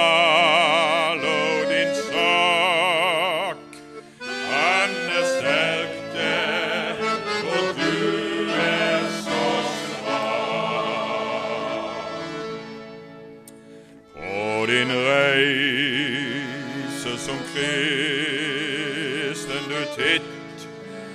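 Male choir singing a gospel song with accordion accompaniment, the voices and accordion wavering in pitch, with a brief lull about two-thirds of the way through.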